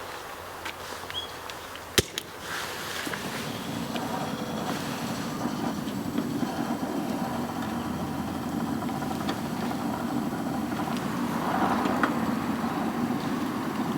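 Bamboo fire in a pail can with holes near the bottom, drawing air and burning with a rushing roar that builds steadily louder, after a single sharp crack about two seconds in.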